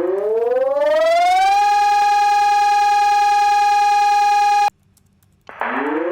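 Pavian 300 electronic siren sounding loudly: its tone rises in pitch over about a second and a half, holds steady, then cuts off suddenly. After a brief pause it starts again with a short hiss and begins rising once more near the end.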